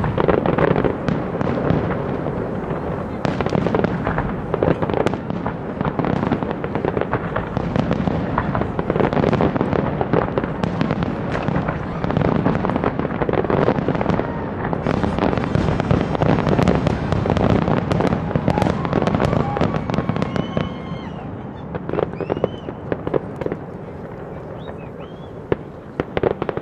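Fireworks display: a dense, continuous run of bangs and crackling bursts that thins out and drops in level after about twenty seconds, with a few short whistling tones near the end.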